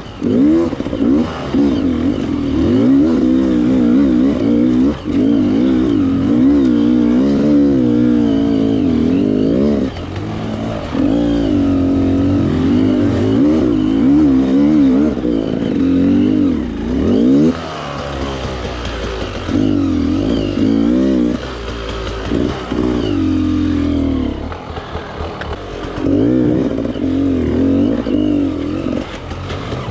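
Enduro motorcycle engine revving up and down as it is ridden off-road, the throttle opened and closed again and again. It eases off several times, around a third of the way in and again past the halfway mark.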